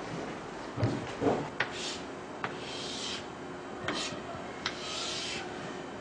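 Two low knocks, then a series of short scraping strokes across a hard surface with sharp taps between them.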